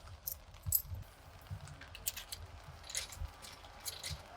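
Coins clinking as they are fed into a drinks vending machine's coin slot: a scatter of short metallic clicks, the loudest about three-quarters of a second in.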